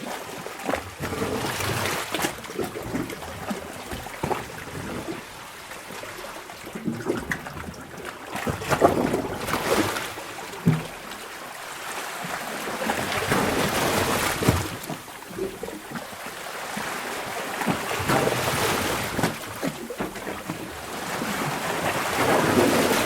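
Sea water sloshing and splashing in a sea cave, swelling and ebbing every few seconds as waves surge in, with sharp splashes of water slapping against a small boat.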